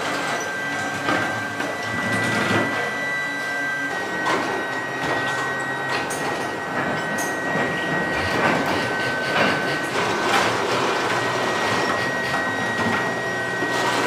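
Factory machinery running, with a steady high whine that steps slightly in pitch about four seconds in, over irregular metallic clatter and knocks.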